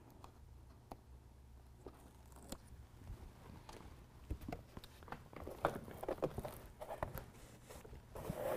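Faint rustling and scattered light clicks from handling a carpet-like truck bed liner and its adhesive hook-fastener backing as it is pressed onto the wheel well, getting busier and louder in the second half.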